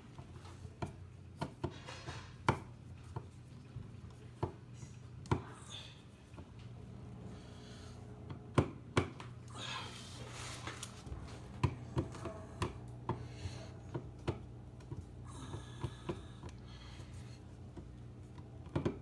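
Scattered sharp clicks and knocks of objects being handled, irregular and a dozen or more in all, over a steady low hum.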